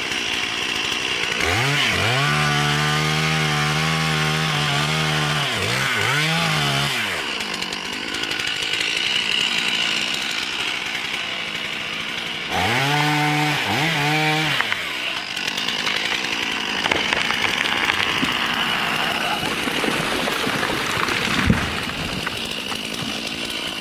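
Chainsaw engine twice revved up to a high whine, held, then let back down, with the saw running steadily in between. A single sharp knock near the end.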